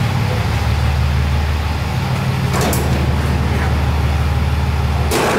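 Twin-turbo diesel engine of a 1949 Ford F1 truck idling with a steady low rumble. There are two brief sharp noises, a faint one about two and a half seconds in and a louder one just before the end.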